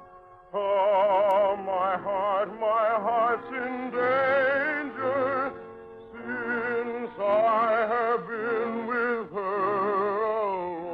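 Operatic singing with orchestral accompaniment, the voice held in long notes with a wide vibrato, after a brief pause about half a second in.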